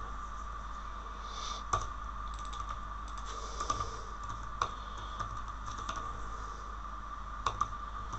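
Typing on a computer keyboard: irregular, scattered keystrokes over a steady background hum.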